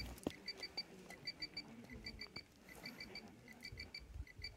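High-power rocket's armed recovery electronics beeping: short, high beeps in quick groups of three or four, repeating with brief pauses. These are the confirmation beeps that the recovery system is armed.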